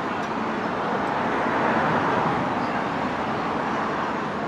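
Street traffic noise, a vehicle passing: a steady rushing sound that grows louder to about two seconds in, then fades.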